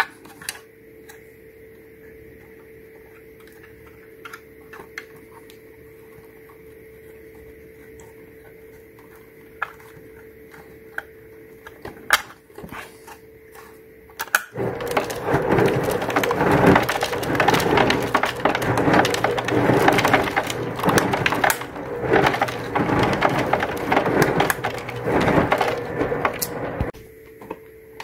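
Faint steady hum with a few scattered plastic clicks, then, about halfway, a loud dense clatter for about twelve seconds: the ice dispenser of a 2004 GE Profile refrigerator crushing ice and dropping it down the chute, the switch now engaging.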